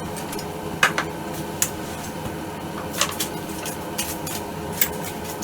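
Scattered sharp clicks and light clattering taps, about eight in all, over a steady low hum.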